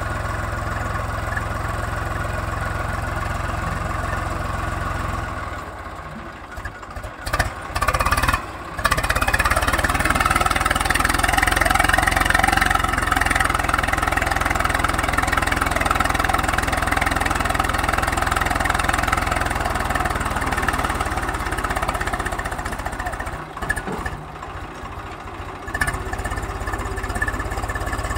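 Swaraj 735 FE tractor's diesel engine working hard as the tractor and its loaded trailer strain to pull out of deep sand, with the rear wheels dug in. The engine runs louder through the middle stretch and eases off briefly twice, about six seconds in and again near the end.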